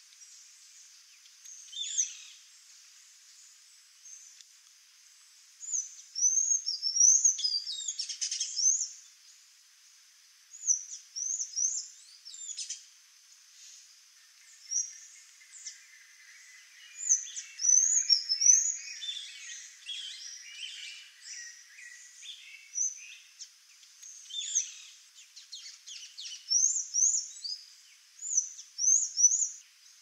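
Songbirds chirping: bursts of short, quick, high notes every few seconds, over a steady high hiss.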